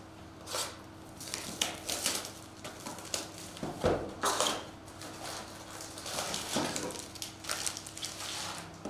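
Foil-wrapped trading card packs rustling and clicking as they are handled out of a cardboard box and stacked on a table, in irregular small bursts, with a heavier thump about four seconds in.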